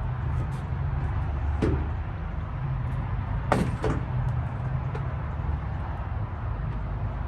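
A few sharp clicks and knocks from hands working on the tail-light wiring and connectors: one about a second and a half in, and two close together a little past halfway. A steady low rumble runs underneath.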